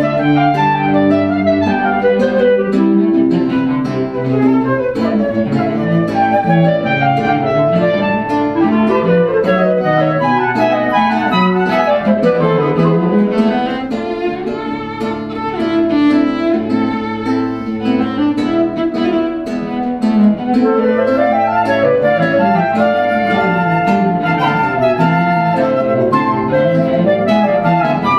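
Instrumental music, several melodic lines at once moving in quick rising and falling runs, with a brief softer passage about halfway through.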